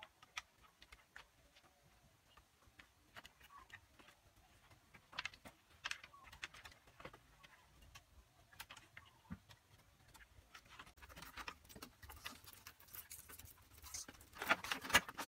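Scattered light clicks and taps of bamboo being handled. In the last few seconds they thicken into denser scraping and rattling, loudest near the end, as bamboo slats are tied in place.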